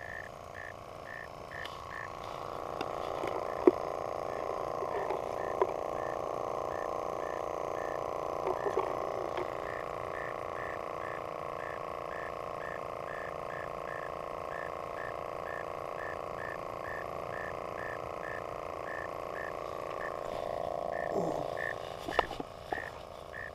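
Frogs calling: short calls repeated evenly, about two or three a second, over a steady hum.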